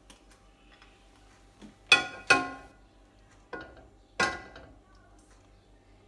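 Four ringing knocks as a ceramic bowl and spatula strike a stainless steel saucepan while honey is scraped into it: two close together about two seconds in, then two more over the next two seconds.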